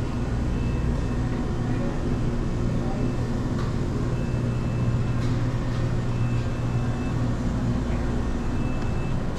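Steady low machine hum of a convenience store's refrigerated cases and air handling, with a faint high tone that comes and goes a few times and a few light clicks.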